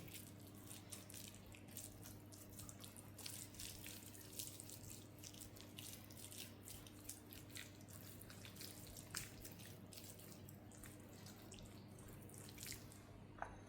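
Faint, irregular wet clicks and squelches from hands massaging a spice paste into raw beef rump cap, over a low steady hum.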